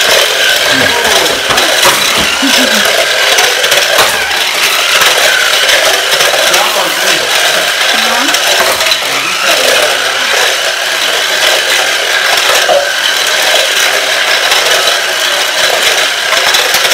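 Smart Steer Lightning McQueen toy car driving across a tile floor: its small electric drive motor whirs steadily and its plastic wheels and body rattle.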